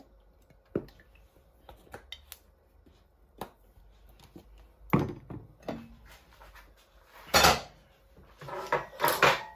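Kitchen cookware being handled: scattered light clicks and knocks of a saucepan and utensils, with a few louder clatters in the second half.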